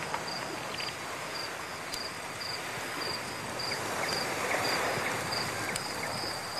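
A cricket chirping in short high pulses about twice a second, steady and regular, over a constant outdoor background hiss.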